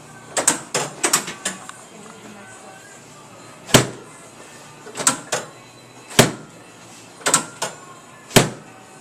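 Chiropractic drop table (Thompson Terminal Point technique) clacking as its padded sections are set and drop under the adjuster's push: a quick run of clicks near the start, then about seven single sharp knocks about a second apart. The clack is the table's drop mechanism, not the patient's spine.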